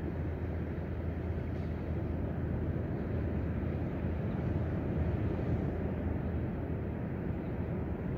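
Steady low rumble of ocean surf breaking along a beach.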